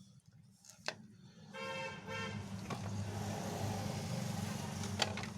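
Two short vehicle horn honks, followed by the rising noise of a vehicle passing, over a steady low hum.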